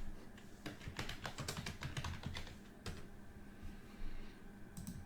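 Typing on a computer keyboard: a quick run of key clicks for about two seconds, then a lone click and a couple more near the end.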